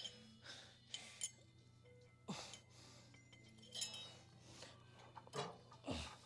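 Faint, forceful breaths and short straining exhales from a person working through a set on an adductor machine, with light metallic clinks and faint background music.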